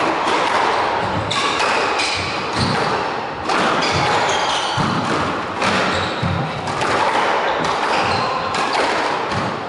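A squash rally: racquet strikes and the ball hitting the court walls give sharp, echoing knocks every second or so.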